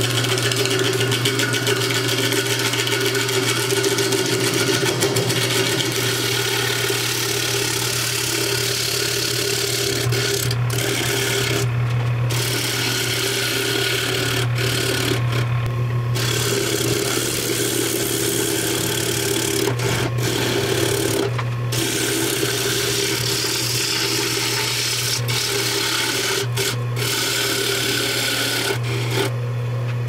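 Jet wood lathe motor humming steadily while a carbide turning tool cuts a spinning log blank, a continuous rasping scrape of tool on wood. The scrape breaks off briefly several times as the tool lifts from the wood, while the lathe hum carries on.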